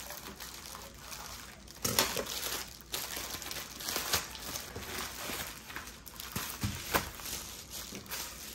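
Scissors cutting into a plastic bubble mailer, then the plastic mailer crinkling and rustling as it is pulled open and a plastic-wrapped kit is slid out, with sharp crackles about two seconds in and again about seven seconds in.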